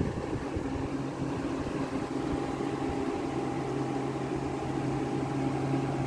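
Vintage Fedders window air conditioner running: its Rotorex rotary compressor gives a steady low hum with a faint higher tone over the even rush of the fan blowing air.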